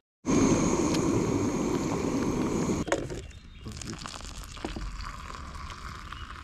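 Water at a hard rolling boil in a pot over a backpacking gas canister stove, a loud, dense bubbling. About three seconds in it cuts off, and a quieter trickle follows as the hot water is poured from the pot into a plastic mug.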